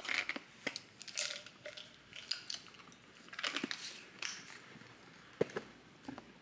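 A large clear plastic water bottle being handled, its white screw cap turned: irregular plastic creaks, rustles and clicks, with one sharp click about five seconds in.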